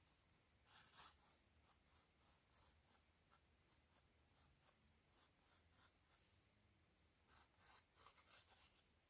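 Pencil sketching on a stretched canvas: faint, irregular short scratching strokes, densest about a second in and again near the end.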